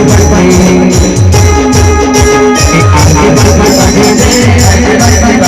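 Timli band music at full volume: a fast, even drum beat of deep hits that drop in pitch, with tambourine-like jingles on top and held melody notes over it.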